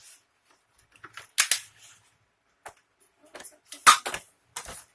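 Cardboard box and plastic packaging being opened and handled, with a few sharp crackles and snaps. The loudest come about a second and a half in and about four seconds in.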